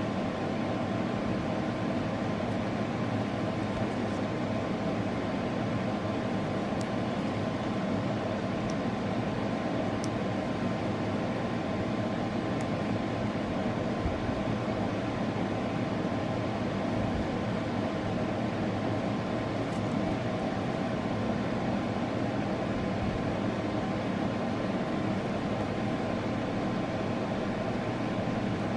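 A steady mechanical hum and hiss with a faint high tone running through it, and a few faint ticks over it.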